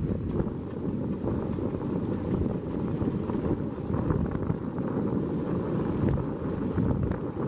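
Steady road noise from inside the cab of a vehicle driving on a snow-covered road: tyres running through packed snow and slush, with engine noise underneath.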